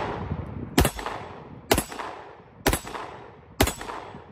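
Tisas Duty 1911 pistol in 9mm firing four shots, about one a second, each with a long echoing tail. The pistol cycles every round through to the end of the magazine without a malfunction.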